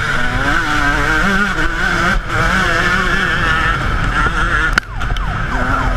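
Yamaha YZ125 single-cylinder two-stroke motocross engine running hard, its pitch rising and falling repeatedly as the throttle is worked, with a brief drop about five seconds in.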